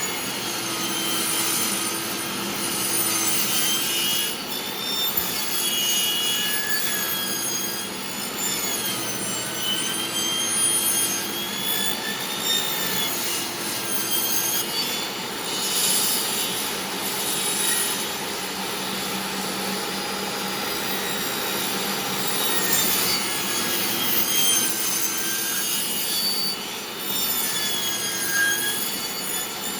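DeWalt table saw blade cutting into a wooden board as the board is turned across it to cut a circular groove. The sawing is steady and rasping, with a whine that wavers up and down in pitch as the load on the blade changes.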